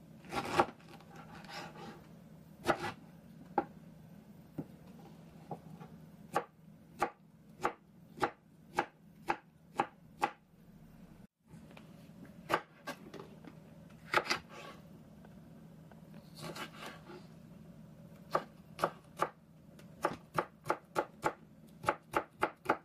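Chef's knife cutting on a plastic cutting board: first slicing pineapple flesh, then chopping red bell pepper. The strikes come singly and unevenly, then speed up near the end into a quick run of about three a second.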